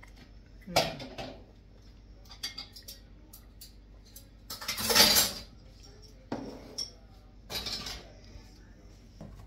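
Kitchen clatter of dishes and cutlery: a run of separate clinks and knocks, the loudest a longer clatter about five seconds in.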